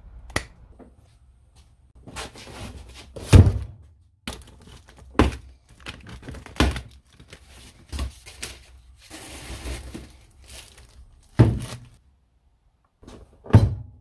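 A series of about seven separate thuds and knocks from objects being handled, with a short stretch of rustling, tearing noise about nine seconds in.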